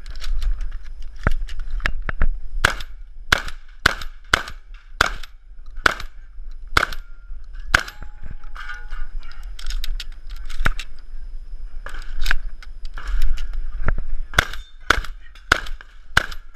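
Shotgun firing a rapid string of shots, mostly half a second to a second apart, with a few short pauses.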